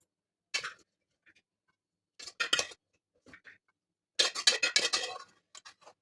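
A metal utensil clinking and scraping against a cooking pot in several short bursts, the longest and loudest about four seconds in.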